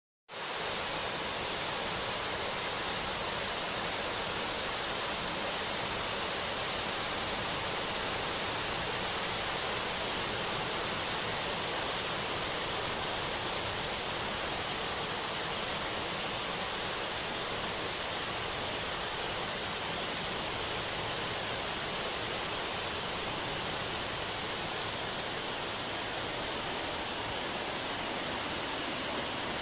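Heavy rain falling steadily as a typhoon approaches: an even, unbroken hiss that holds the same level throughout.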